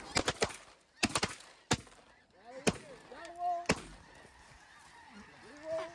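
A volley of shotgun shots over snow geese, a quick cluster and then single shots about a second apart, with snow goose calls among and after the shots.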